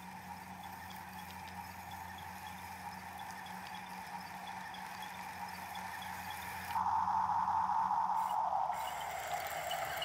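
Electric drive motors of a Huina radio-controlled toy excavator whining steadily as it crawls on its tracks through snow, getting louder about seven seconds in.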